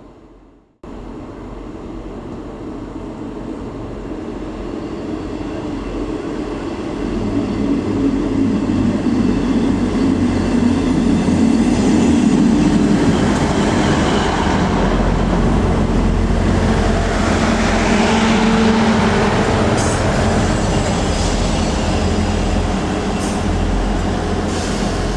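Diesel train running through a station, growing louder over about the first twelve seconds and then holding steady, with a low engine drone throughout and a few faint clicks later on.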